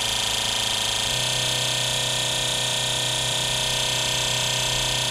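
Peugeot 206 fuel injectors pulsing rapidly on an injector test bench during an RPM test, with their fine spray hissing into the measuring cylinders. Together they make a steady buzz whose pitch shifts abruptly about a second in, as the bench's set RPM changes.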